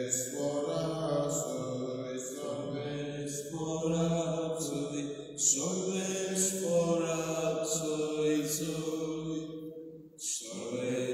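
A solo man's voice singing the Gospel Alleluia unaccompanied, in long held, chant-like phrases with short breaths between them, echoing in a church.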